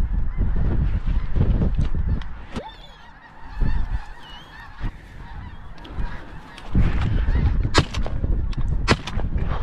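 A large flock of snow geese calling, a dense chorus of honks, over a low rumble of wind on the microphone. Two sharp cracks about a second apart near the end.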